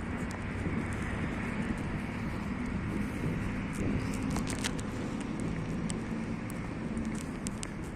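Steady outdoor city background noise: a low rumble of road traffic with scattered faint clicks.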